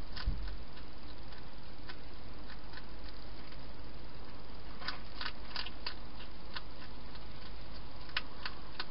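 Hedgehog feeding from a bowl inside a plastic feeding box: scattered small clicks and crunches of chewing, bunched in clusters about five seconds in and near the end, over a steady hiss.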